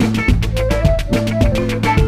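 Upbeat Latin-style background music with a steady percussion beat, bass and a melodic line.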